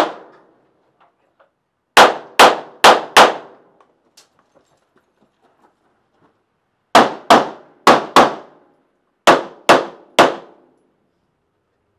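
Pistol shots fired in quick pairs: two pairs about two seconds in, two more pairs about seven seconds in, then three shots near the end. Each shot rings on briefly inside a wooden shoot house.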